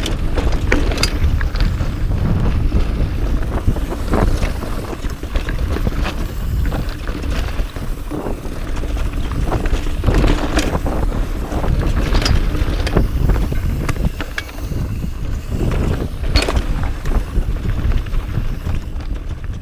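Mountain bike riding down a rocky dirt singletrack: a steady low rumble of wind on the microphone and tyres on dirt, with frequent sharp rattles and clacks from the bike as it goes over rocks.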